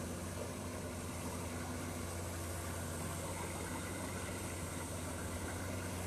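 Maxxi Bimo rice combine harvester's engine running with a steady low hum as the machine crawls on its tracks through deep paddy mud.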